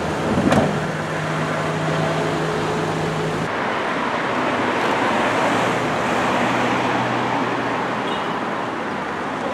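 Van engines idling with a steady hum, and a sharp knock about half a second in. After a cut, a wash of road noise and engines as Ford Transit gendarmerie vans drive out.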